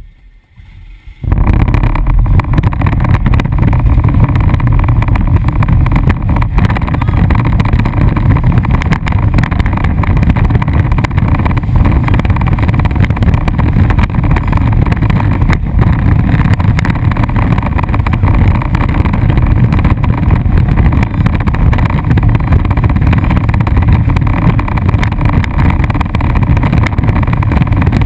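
Loud, steady rumble of a Power Wheels Mustang toy car being towed fast over asphalt: its plastic wheels rolling on the road and wind buffeting the hood-mounted camera. It starts suddenly about a second in and runs on without letup.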